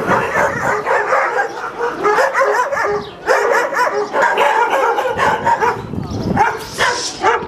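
A large group of shelter dogs in outdoor pens barking at once, many overlapping barks with no let-up, easing briefly twice.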